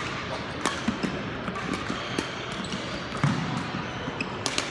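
Badminton rally: sharp cracks of rackets striking the shuttlecock, once under a second in and twice in quick succession near the end, with players' footsteps thudding on the wooden court.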